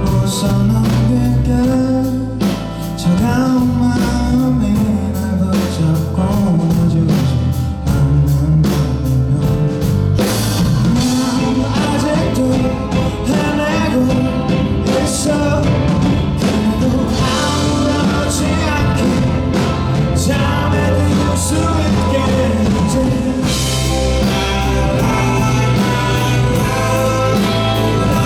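Rock band playing live: a male lead vocal sung over guitar, bass and a drum kit, with steady drum hits throughout.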